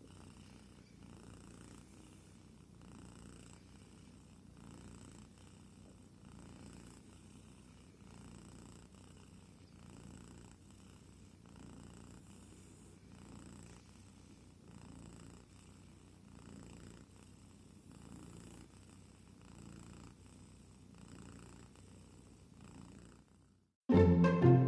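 A kitten purring softly and steadily, rising and falling in slow, even cycles. Near the end the purring cuts off and, after a moment of silence, loud music with strings starts.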